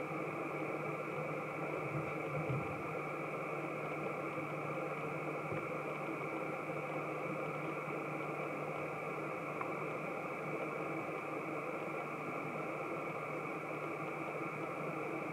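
Steady drone of distant aircraft engines, a low hum carrying a steady high whine, unchanging throughout.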